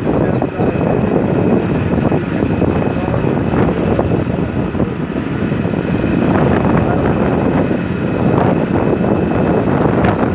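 Wind on the microphone of a handheld phone on a moving motorcycle, with the motorcycle's engine and road noise underneath. Loud and steady.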